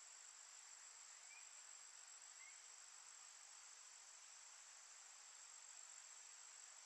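Faint, steady high-pitched insect drone over a soft hiss, with two short faint chirps about one and two and a half seconds in.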